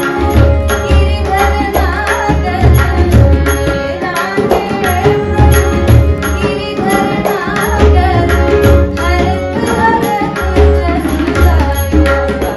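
Woman singing a Hindustani devotional bhajan with harmonium, tabla and pakhawaj accompaniment. The drums keep a steady rhythm of deep bass strokes under the voice and the harmonium's held notes.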